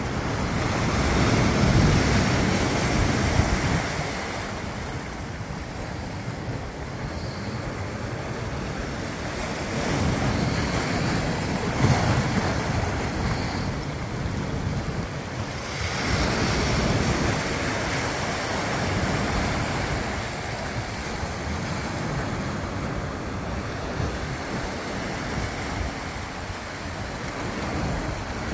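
Ocean surf breaking on a beach, rising and falling in long swells several seconds apart, with wind buffeting the microphone.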